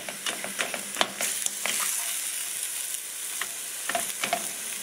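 Ground beef sizzling in a stainless steel skillet while a plastic slotted spatula breaks it up and stirs it, with scattered scrapes and taps of the spatula against the pan. The beef is browning.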